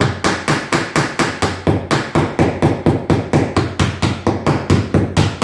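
Rapid, steady hammering, about five blows a second, on a fastening that is set into a new rib of a wooden boat's hull.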